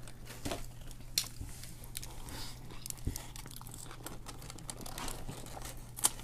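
Sandwich wrapper paper crinkling and rustling as it is handled, with scattered sharp crackles and a sharper snap near the end.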